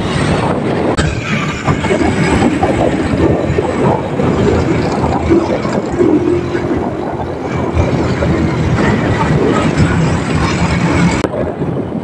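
Motor scooter being ridden on the road: its engine runs under steady wind noise on the microphone. The sound changes abruptly near the end.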